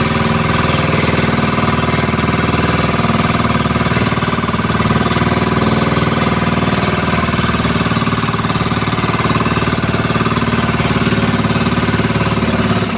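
Motorized outrigger boat's engine running steadily under way, a loud, even, fast-pulsing chug.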